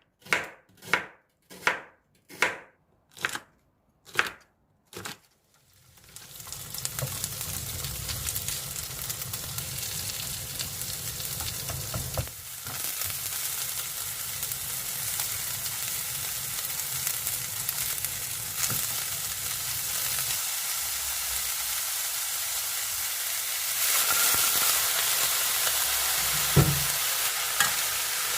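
Seven short, evenly spaced strokes, then food sizzling in a frying pan from about six seconds in. The sizzle grows louder near the end, and a single knock comes late on.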